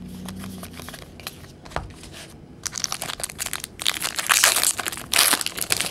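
Crinkly card-pack wrapping being handled and crumpled, with soft card rustling at first. A dense crackle starts about two and a half seconds in and is loudest near the end.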